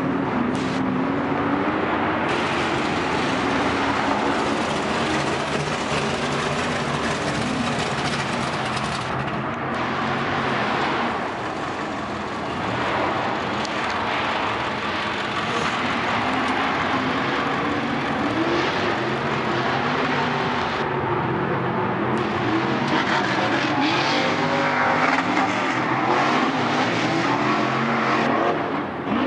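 Off-road race truck engines running and revving on a dirt track, their pitch rising and falling continuously as the trucks accelerate and lift off.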